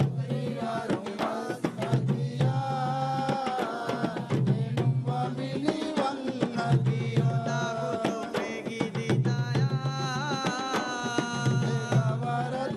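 Ensemble of large double-headed Maldivian hand drums beating a fast, dense rhythm, with voices singing a melodic line over the drumming.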